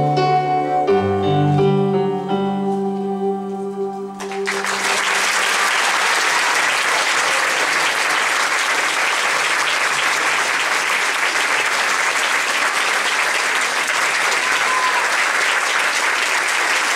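The song's last held chords, with piano, ring for about four seconds and stop. Then the audience applauds steadily.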